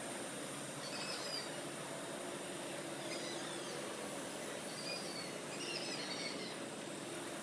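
Air hissing steadily out of small holes drilled in a lawn tractor tire's tread as expanding foam sealant fills the tire and pushes the air out. Short bird chirps come through a few times.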